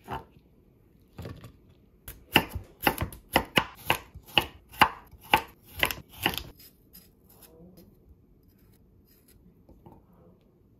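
Chef's knife chopping red chilies and then a carrot on a wooden cutting board. Two single strikes are followed by a steady run of about a dozen knife strokes, about two a second, which stops after about six seconds. Only faint handling sounds follow.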